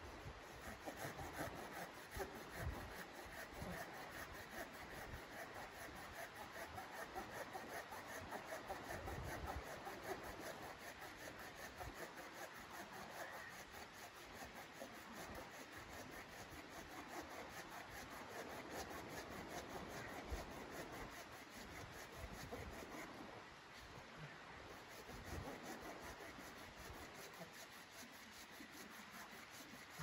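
Hand saw cutting through a log with steady back-and-forth rasping strokes, pausing briefly once.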